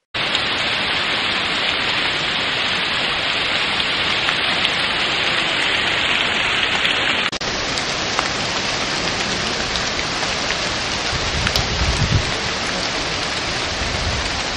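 Steady rain falling, with scattered single drops ticking through it; the sound changes slightly at a cut about halfway through.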